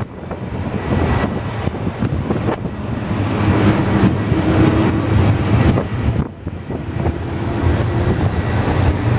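Airbus A321-200 jet engines at takeoff thrust as the airliner climbs out: a loud, steady, broad rumble with wind buffeting the microphone. The sound drops away briefly about six seconds in, then comes back.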